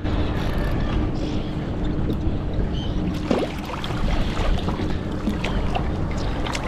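Wind noise and water sounds on a small fishing boat, with a faint steady hum underneath and scattered light knocks and splashes.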